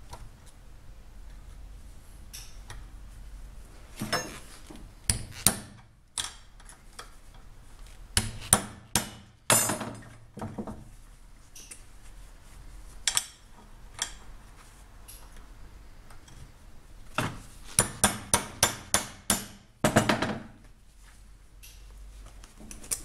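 Sharp metallic knocks and clinks of a sharpened old drill bit being worked against the steel shield of a ball bearing clamped in a bench vise, prying the shield off. The knocks come singly and in small groups, with a quick run of about eight, roughly three a second, a little past the middle.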